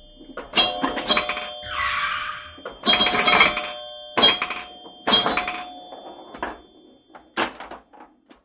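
Animated-logo sound effects: a run of sharp hits, each ringing on with bell-like tones, with a whoosh about two seconds in. The hits grow fainter and sparser toward the end.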